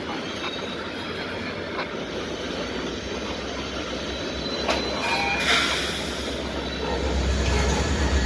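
Freight train of Florida East Coast Railway open-top hopper cars rolling past on steel wheels: a steady rumble and clatter on the rails. Wheels squeal briefly about five seconds in, and the rumble grows deeper near the end.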